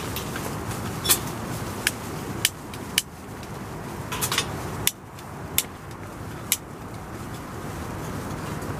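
Sharp metallic clicks and clinks, about a dozen at irregular intervals, as hands handle the metal burner parts of a Fujika Hi-Pet kerosene heater while readying it to light. They sit over a steady low rumble.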